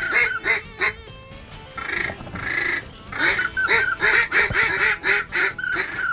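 Waterfowl calling: quacks and honks in quick runs of several calls a second, with a short break about a second in.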